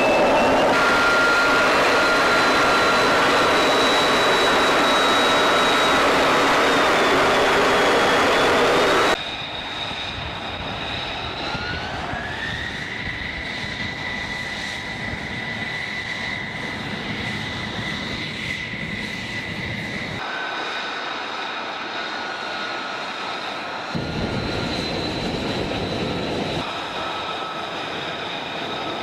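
Loud, steady jet aircraft noise in flight for about nine seconds. Then comes a sudden drop to the quieter, high-pitched whine of F-35 jet engines on the ground as the jets taxi. One whining tone rises about twelve seconds in and holds steady for several seconds.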